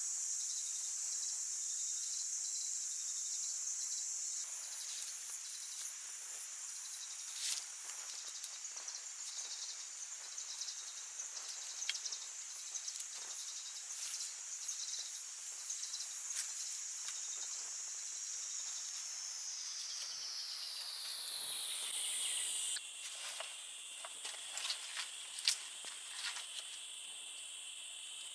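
Forest insects droning at a high pitch, with scattered light clicks and taps. Near the end the drone slides down in pitch, then changes suddenly.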